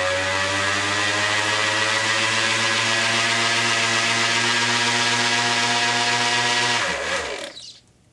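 Electric sander motor running at full speed with a steady whine that rises slightly as it spins up, then winds down and stops near the end when switched off.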